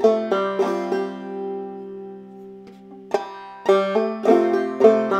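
Open-back banjo played clawhammer style: a measure of a hammer-on into an F chord, brush-thumb strums and a pull-off on the third string, with the last chord left ringing. About three seconds in, the same phrase starts again.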